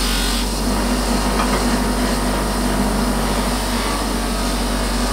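Bench polishing machine running with a steady motor hum while a silver pen blank is pressed against its spinning polishing wheel, giving a constant rubbing hiss.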